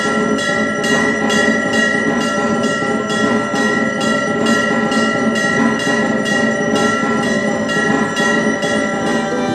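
Temple puja bells ringing in an even rhythm, about three strokes a second, over a steady metallic ring.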